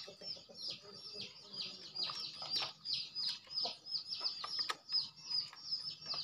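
Birds chirping: a steady run of short high notes, each falling in pitch, about three a second.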